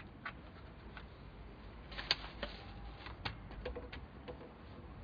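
Irregular small clicks and taps close to the microphone, the loudest about two seconds in, over a faint steady hiss.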